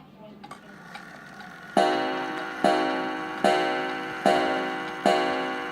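1901 Ansonia Kirkwood kitchen clock ticking, then starting to strike about two seconds in: evenly spaced ringing blows on its gong, a little under a second apart, each one dying away before the next.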